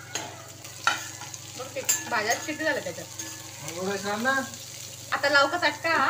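Vegetables being stir-fried in a nonstick pan: a spatula scrapes and taps against the pan over a light sizzle. Three spells of a wavering, voice-like pitched sound come over it, the loudest near the end.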